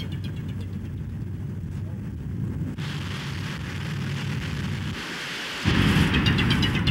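Splashing, rushing floodwater noise as a car drives through deep standing water, throwing up spray. Near the end a sudden, louder low rumble comes in.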